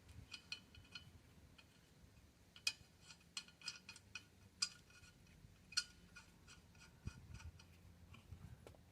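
Faint, irregular metal clicks and clinks of lug nuts and hand tools being handled while the wheel is refitted, with a few sharper clicks standing out now and then.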